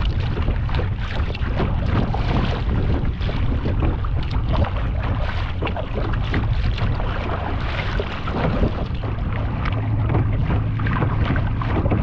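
Wind buffeting the microphone over choppy water, with water splashing and lapping against a plastic kayak's hull and paddle blades dipping and dripping.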